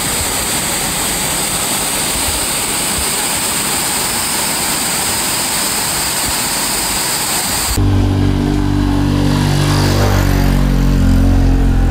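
Steady rushing water pouring over a weir, then an abrupt cut about eight seconds in to a louder, low, pitched engine sound of a motorbike passing close.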